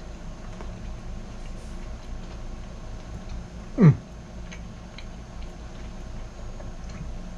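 A man chewing a mouthful of food, faint mouth ticks over a steady low room hum. About four seconds in there is one short vocal sound that falls in pitch.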